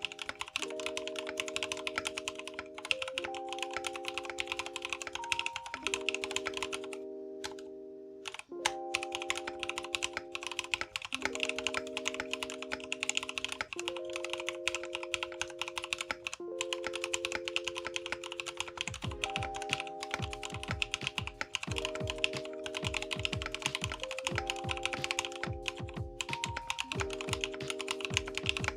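Mechanical keyboard typed on rapidly, its keys giving a continuous stream of clacky keystrokes, with a brief lull about seven seconds in. Background music of sustained synth chords plays under it, and a low pulsing beat joins about two-thirds of the way through.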